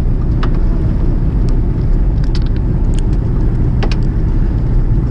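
Steady low rumble of a fishing boat's engine, with two sharp clicks, one about half a second in and one near the end.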